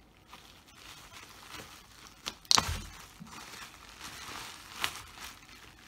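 Plastic bubble wrap crinkling and rustling as hands work it off a figure, with a few sharp snaps, the loudest about halfway through.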